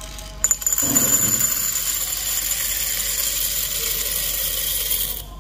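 Freshly roasted coffee beans poured from a roaster's mesh drum into a glass jar: a steady rush and clatter of beans sliding out and rattling against the glass. It starts about half a second in, is loudest near the start, and stops just before the end.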